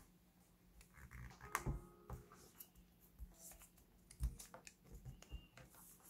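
Faint rustling and tapping of origami paper being folded and its creases pressed down by fingers on a tabletop, with a few sharper knocks, the loudest near the middle.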